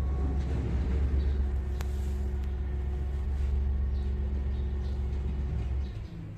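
Low, steady rumble of a running engine, with a faint steady hum above it, dying away about six seconds in.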